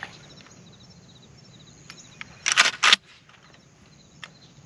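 Kel-Tec KSG 12-gauge bullpup pump shotgun being racked once about two and a half seconds in: two quick strokes of the slide, back then forward, chambering a shell.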